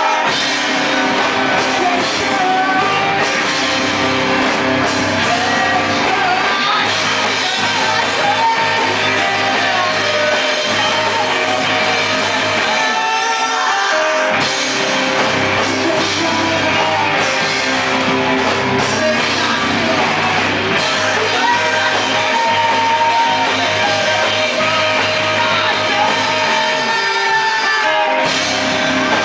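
Live rock band playing, with a lead vocal over guitar and band. The low end drops out briefly about halfway through, then the full band comes back in.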